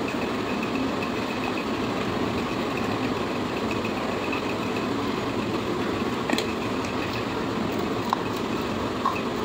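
A steady rushing hum, even throughout, with a few light clicks in the second half.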